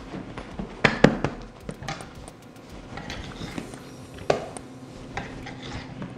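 Sharp knocks and light taps as bread dough is cut and handled on a granite worktop. Two knocks come about a second in and another just after four seconds, with softer taps between.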